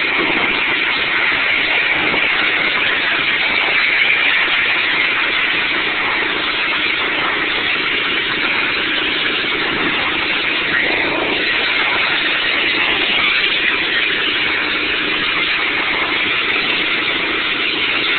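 Pressure-washer spray hissing steadily against clay barrel roof tiles, with a motor running underneath.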